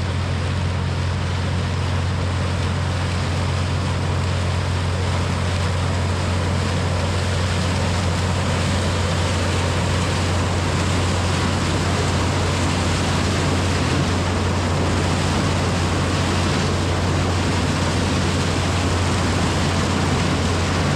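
Heavy farm machinery engine running steadily at constant speed, with a dense rushing mechanical noise over a deep hum.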